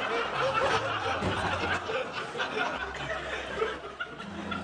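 Studio audience laughing, a crowd of many voices that dies down over the last couple of seconds.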